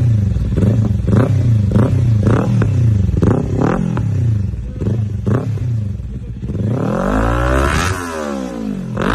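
Modified motorcycle engine being revved in short throttle blips, roughly two a second, then one longer rev that climbs and falls back to idle, followed by a final quick blip.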